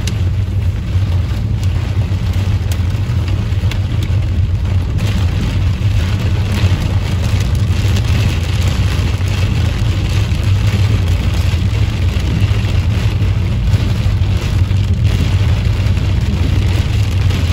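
Heavy rain beating on a moving car's windshield and roof, heard from inside the cabin, an even hiss over the steady low rumble of the tyres and engine.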